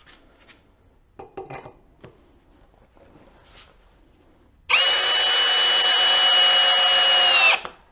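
Ridgid Max Output cordless hammer drill driving a screw into wood in its low speed setting (speed one): a steady motor whine that starts about five seconds in, runs for about three seconds and cuts off. Light knocks and handling of the drill come before it.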